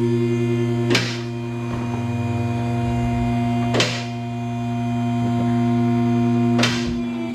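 Two-post car lift's electric hydraulic pump motor humming steadily as it raises the car, with a sharp click about every three seconds as the safety locks pass. The motor cuts off suddenly at the end.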